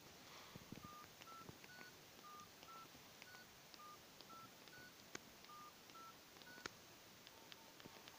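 Nokia flip phone's keypad beeping as number keys are pressed one after another: about a dozen short single beeps, roughly two a second, the pitch stepping up a little from key to key in short runs, with faint clicks of the keys.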